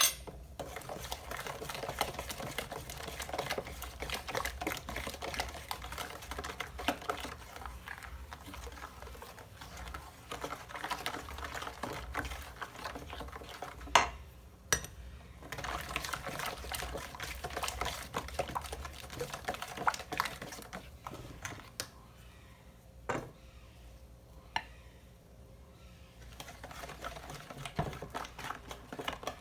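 A utensil beating and mixing ingredients by hand in a bowl, a fast run of small clicks and scrapes against the bowl, with one sharper knock about halfway through and a quieter spell near the end.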